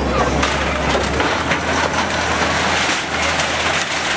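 Wheel loader's diesel engine running with a steady low hum as its bucket pushes into a small brick building, over dense crackling and crunching of breaking masonry and debris.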